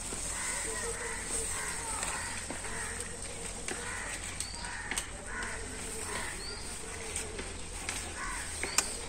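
Crows cawing over and over in the background. Twice, about halfway and near the end, a sharp snap sounds as a hyacinth bean pod is picked off the vine.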